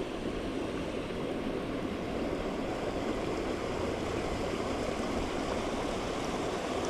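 Creek water running steadily, a continuous rushing hiss.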